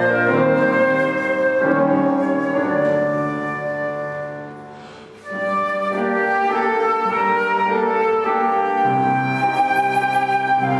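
Flute and piano playing a classical piece. The music dies away about four seconds in, then comes back in sharply a second later and carries on.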